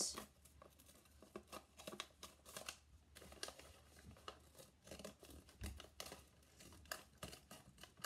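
Scissors cutting through a paper-wrapped milk carton: faint, irregular snips as the blades work along a drawn line.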